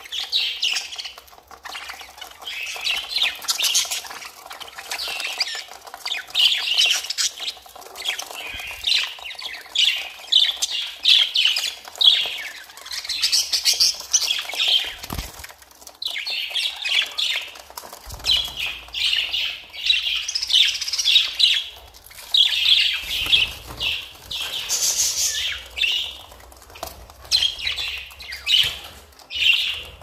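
A flock of budgerigars chattering and chirping nonstop, many birds calling over one another in quick, high warbles and squawks.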